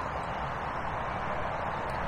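Steady, even rushing background noise, with a few faint high bird chirps above it.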